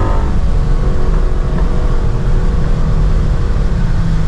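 Ford Mustang GT's 5.0-litre V8 running while the car drives along, heard from inside the cabin as a steady exhaust drone.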